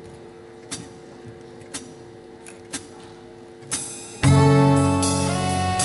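A live band's count-in: four sharp clicks about a second apart over a steady amplifier hum. Then, about four seconds in, the whole band comes in together with a full sustained chord on guitars and horns.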